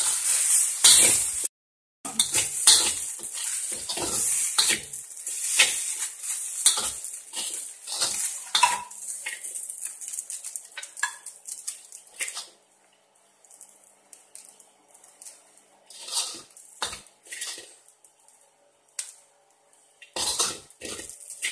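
A utensil clattering and scraping against a stainless steel wok while noodles are stir-fried over high heat, over a sizzle. After about twelve seconds the sizzle and clatter die down, leaving scattered knocks and scrapes.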